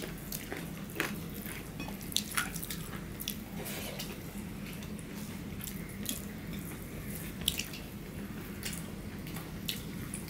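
Wet eating sounds: fingers mixing rice and curry on plates and mouths chewing, with many small scattered clicks and smacks over a steady low hum.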